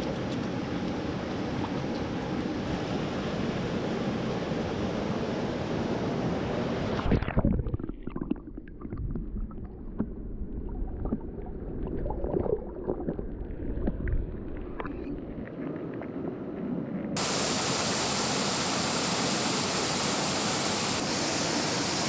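Steady rushing of flowing stream water. About seven seconds in, the sound turns suddenly dull and muffled, with only a low rumble and scattered knocks, for about ten seconds, then the full rushing returns just as suddenly.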